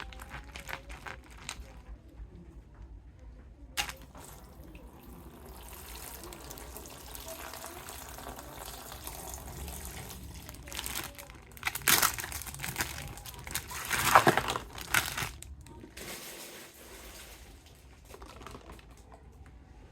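Plastic toy packaging crinkling and rustling as it is handled and opened, with scattered small clicks; the loudest crackling comes about two-thirds of the way through.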